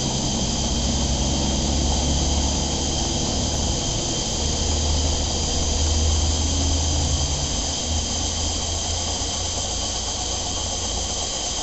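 Titan model live steam engine running steadily under steam from a gas-fired boiler, with its flywheel and governor turning: a steady high hiss over a low hum that swells and eases.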